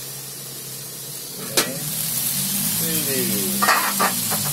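Chilies and garlic cloves frying in hot oil in a wok, a steady sizzle with a single sharp pop about a second and a half in.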